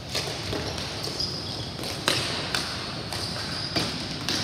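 Ball hockey play: about half a dozen sharp clacks of sticks and the hard plastic ball striking each other and the court, a second or less apart, over a steady murmur of room noise.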